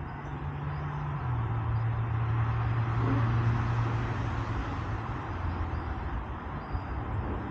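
A motor vehicle's engine hum with a rush of noise that swells to a peak about three seconds in and then fades, as the vehicle passes.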